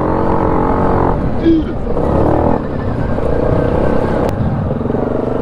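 ATV engine running steadily at low speed, its pitch shifting slightly a few times.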